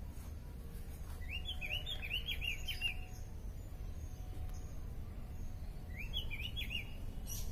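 A bird calling in two runs of quick, repeated chirps, one about a second in and another near the end, over a faint low rumble.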